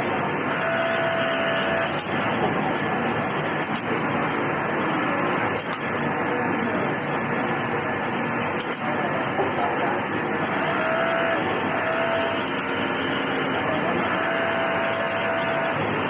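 Industrial sewing machine running in repeated bursts of about a second each, its motor whine starting and stopping over a steady background din of machinery.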